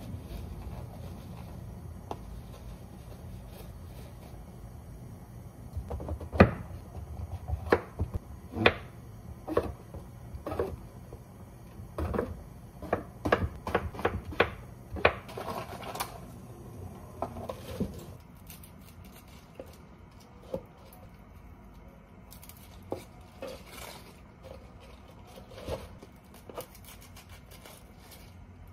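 Hard objects being handled: a quick, irregular run of sharp knocks and clacks, busiest through the middle of the stretch, then fainter scattered clicks.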